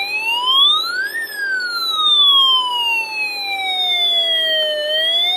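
Snap Circuits U2 alarm IC sounding a police-style siren through the kit's speaker, from the first input of a new replacement module that works correctly. A buzzy electronic tone rises for about a second, falls slowly for nearly four seconds, then starts rising again near the end.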